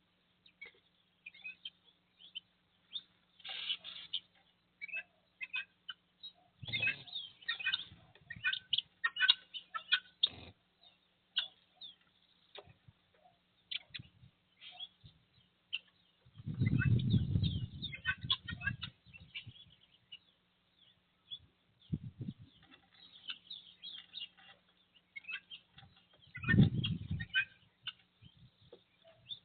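Small caged songbirds chirping and trilling in quick, scattered calls. Several low rumbling bursts break in, the longest lasting about two seconds near the middle, over a faint steady hum.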